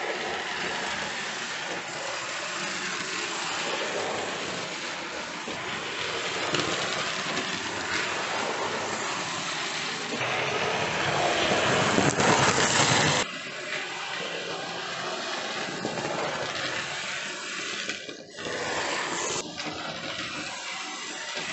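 Hornby OO gauge BR Standard 9F model locomotive running round the track: a steady whirr of its electric motor with the rumble of wheels on the rails. It grows louder about ten seconds in, then drops off suddenly a few seconds later.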